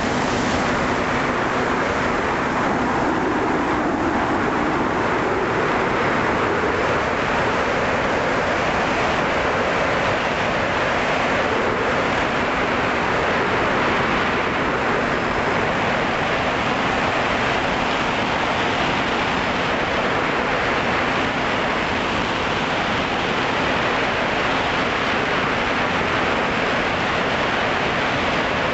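Steady rush of wind and propeller noise picked up by a drone's onboard camera in flight, with a faint steady hum from the motors underneath.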